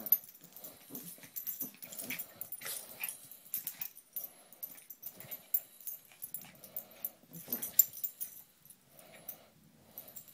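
Two papillon dogs play-fighting: irregular short bursts of growls and breathy huffs, broken by sharp snaps and scuffles.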